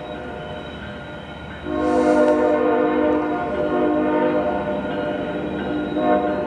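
Norfolk Southern freight locomotive's air horn sounding a chord: a long blast starting about a second and a half in, then a short blast near the end, over the low rumble of the arriving train.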